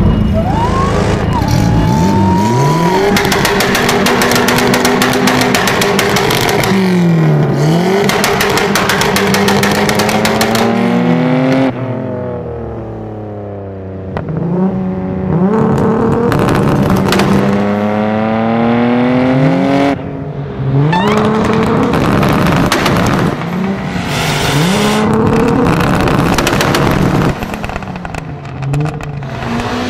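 Car engine revving sounds, the pitch sweeping up and down again and again, with a quieter stretch near the middle.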